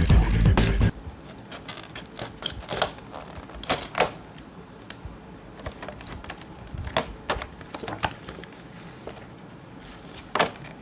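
Background music that cuts off about a second in, then irregular light clicks and knocks of a plastic laptop power adapter and its cables being handled and set down.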